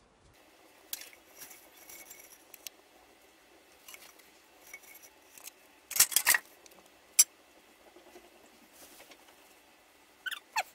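Glazed ceramic floor tiles being shifted and pressed into place on mortar by hand: scattered clicks and scrapes of tile on tile. The loudest is a cluster of clinks about six seconds in and a sharp click a second later, with a few short squeaks near the end.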